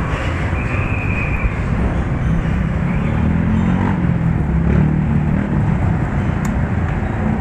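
A motorcycle engine idling steadily, with a short high-pitched tone about a second in.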